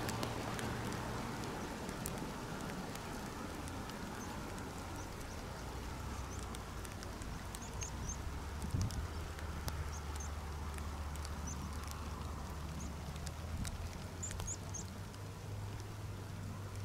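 Steady low drone of a distant military vehicle's engine, growing stronger about six seconds in, over outdoor ambience with small birds chirping in short clusters and scattered light clicks.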